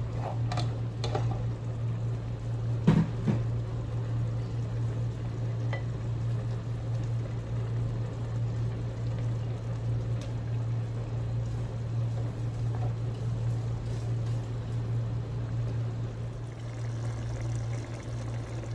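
Steady low hum with faint liquid sounds from a pot of okra soup cooking on the stove, and a few light clinks, about five scattered through.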